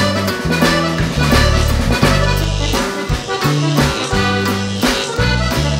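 Instrumental music with a held-note, accordion-like melody over a bass line and a steady beat.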